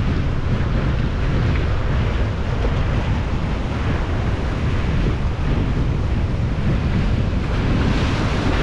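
Wind buffeting the microphone over a steady wash of surf.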